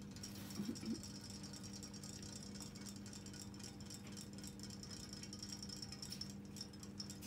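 Small battery motors of robotic toy fish buzzing steadily in a glass dish of water, with faint scattered ticks.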